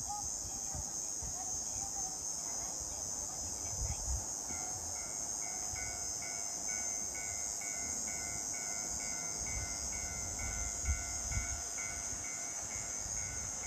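Steady high chirring of summer insects, and from about four and a half seconds in a railway level-crossing alarm ringing about three times a second, the signal that a train is approaching.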